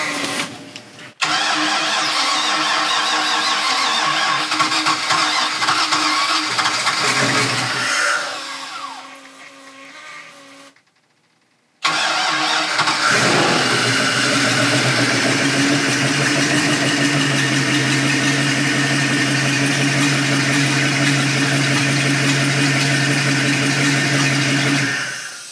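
Mercruiser 7.4-litre (454 cubic inch) MPI V8 sterndrive engine starting and running after being hydrolocked with water. It runs for several seconds and fades away, then after a moment of silence it fires again and settles into a steady idle.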